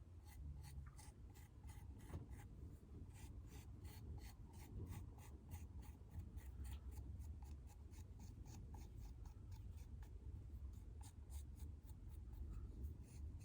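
Faint, quick scratching strokes of a tool scoring clay, about three or four a second: the surfaces are being roughened so the two parts can be joined with slip.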